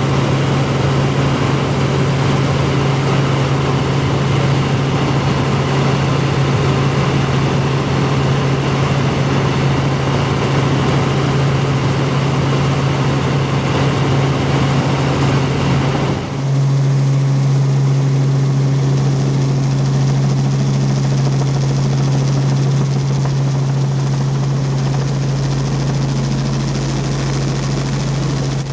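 Helicopter in flight, heard from on board: a steady low rotor hum under a loud, even rush of engine and air noise. About halfway through, the high hiss drops away suddenly and the low hum becomes stronger.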